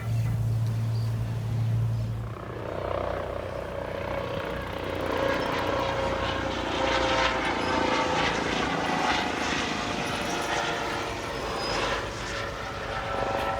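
Aircraft engine noise at an air show: a steady low hum for about the first two seconds, then a fuller sound with several steady tones held through the rest.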